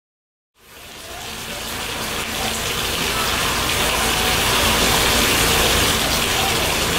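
Water gushing from a bathtub spout into the tub as it fills. It fades in after about half a second of silence and swells to a steady rush.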